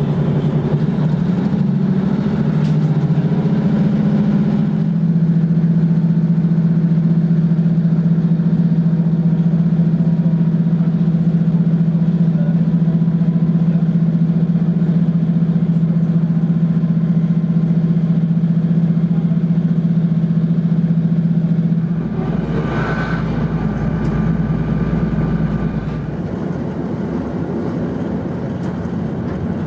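Diesel multiple unit's engine running: its pitch shifts over the first few seconds, then holds steady. About 22 seconds in the sound changes to a deeper low rumble with a brief hiss.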